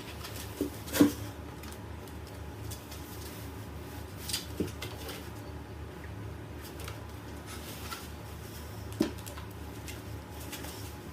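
A steady low hum of indoor room noise with a few light knocks and clicks, the sharpest about a second in and another near nine seconds.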